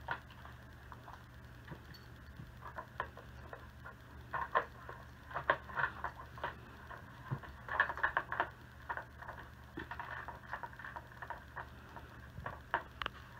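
A dog working a plastic layered puzzle toy for treats: irregular light clicks and taps from the stacked plastic layers as it noses them and eats, coming in short clusters.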